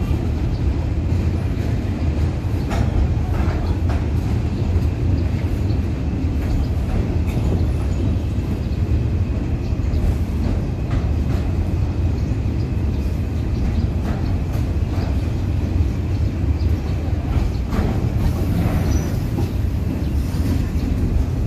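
Loaded container flat wagons of a freight train rolling steadily past, a continuous low rumble with occasional short clicks.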